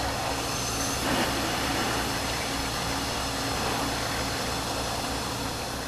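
OMAX abrasive waterjet cutting a 1-inch aluminum block below the raised water level of the tank: a steady, even hiss with a low hum underneath.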